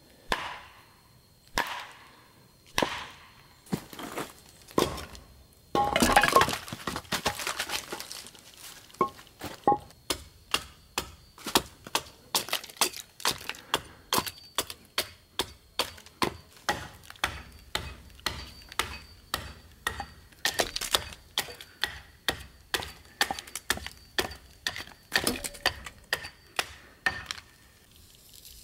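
Hatchet chopping into a green tan oak blank on a chopping block, scoring and hewing it: a few spaced strikes, then a dense flurry of cracks about six seconds in, then a long run of steady chops about two a second that stops just before the end.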